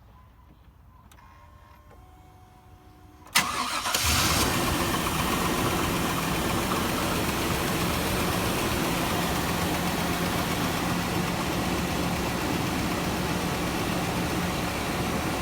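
Pickup truck engine starting suddenly about three seconds in, then idling steadily. The engine has rod knock and lifter tick, though the knocking is fairly quiet this time.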